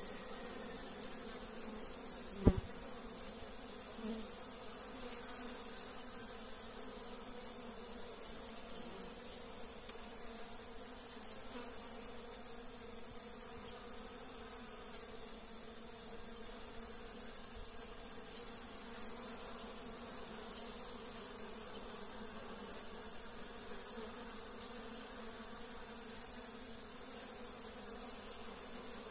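Many Africanized honey bees buzzing steadily as they forage for pollen on palm flowers, a continuous low hum of wingbeats. One sharp knock about two and a half seconds in.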